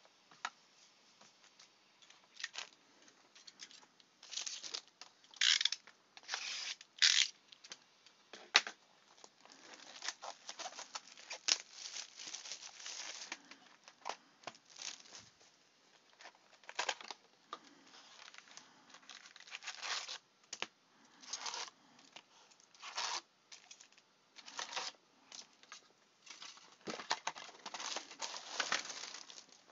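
Trading-card packaging being torn open and handled: the wrapper and foil packs of a fresh card box tearing and crinkling in irregular bursts, on and off.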